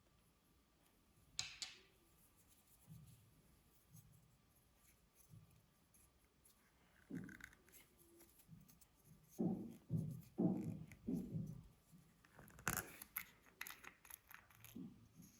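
Clear slime being worked by hand: a sharp click about a second and a half in, then a run of short squelches and crackly pops in the second half.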